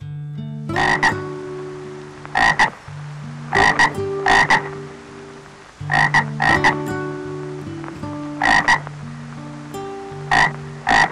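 A frog croaking in short calls, mostly in pairs, repeated every second or two.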